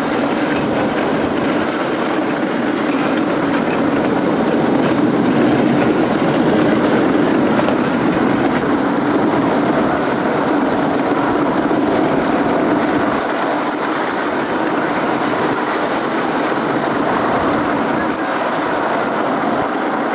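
Miniature railway train on 10.25-inch gauge track, heard from a riding carriage: a steady, continuous rumble of the carriages' wheels running on the rails, with some clatter.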